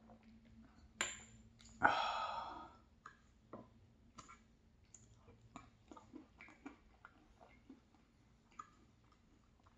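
Close-up eating sounds of ice cream with crumbled tart: a sharp click about a second in, a louder short rasping sound just after, then many soft wet mouth clicks from chewing.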